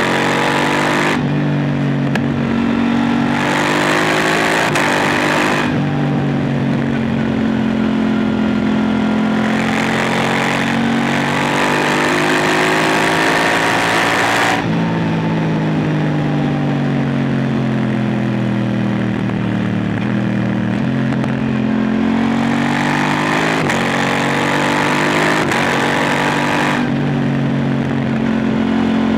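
KTM 890 Duke R's parallel-twin engine through an Arrow Pro Race silencer, ridden hard. Its note climbs and drops sharply at each upshift in the first few seconds, then holds high. About halfway through it falls away in a long glide as the bike slows, then climbs again near the end.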